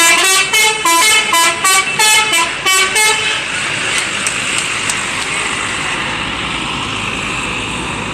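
Indonesian 'telolet' bus horn playing a quick tune of short stepped notes for about three seconds, then stopping, leaving steady vehicle noise. A brief rising tone comes near the end.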